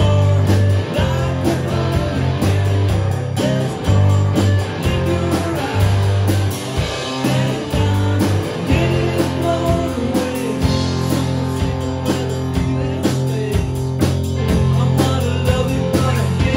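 Rock band playing live: electric bass guitar holding low notes under drums and guitar in an instrumental passage.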